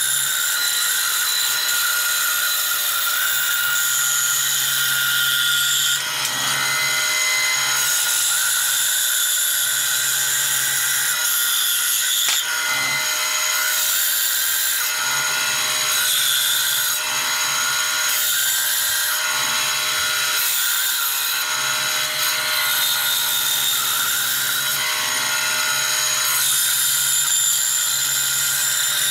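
Bandsaw running and cutting slowly through a thick board of dense oak. The cutting sound swells and eases about once a second through the second half as the wood is fed forward in short pushes.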